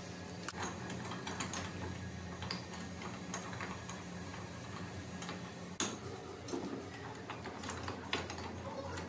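Metalworking shop machinery: a steady low motor hum with scattered metal clicks and knocks, and a sharper knock about six seconds in.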